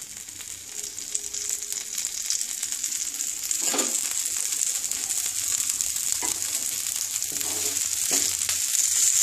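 Oil sizzling in a nonstick frying pan around the edge of a thick urad (buili) dal batter pancake, just after oil has been drizzled in. A steady high hiss that grows louder, with a few crackles.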